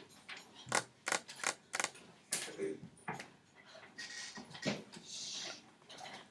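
Faint scattered clicks, knocks and rustling with a brief low murmur of a voice about two and a half seconds in: small handling noises in a quiet room.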